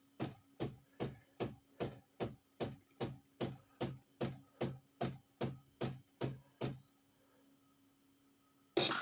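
Philips 5400 bean-to-cup coffee machine pulsing with a steady run of low knocks, about two and a half a second, for most of seven seconds. After a short pause, its bean grinder starts up loud and continuous near the end.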